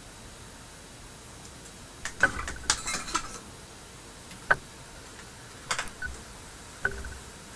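Light clicks and clinks of small hard objects being handled: a quick cluster about two seconds in, then single clicks spaced a second or so apart.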